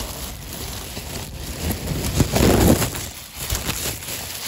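Rustling and handling noise close to the microphone as the phone is moved about, loudest about halfway through.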